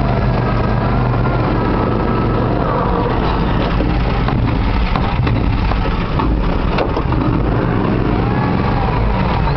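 ARGO amphibious ATV's engine running steadily under load as it drives through a flooded stream, a loud low drone heard from on board, with a few brief knocks around the middle.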